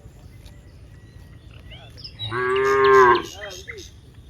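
A cow moos once, a single call of about a second starting about two seconds in. Small birds chirp faintly around it.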